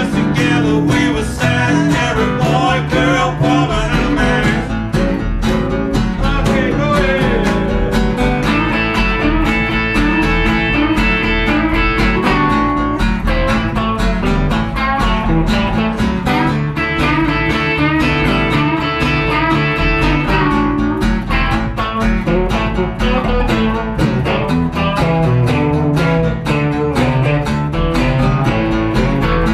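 A blues band playing live: guitar over bass and drums, with a steady beat.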